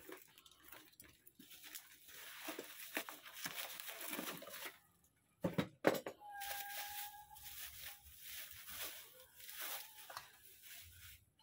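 Plastic bubble wrap and packing bags rustling and crinkling as a guitar effects pedal is unwrapped, with two sharp knocks just before the middle and a brief steady squeak right after them.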